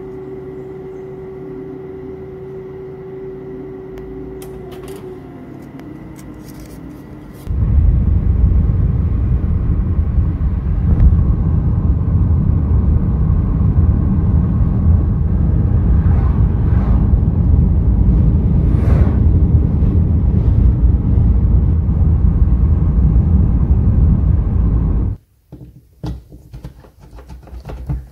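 An electric power tool's motor hums steadily, dropping slightly in pitch. About seven seconds in a loud, low rumbling noise starts suddenly, the tool working against the boards, and it cuts off abruptly near the end. A few knocks follow.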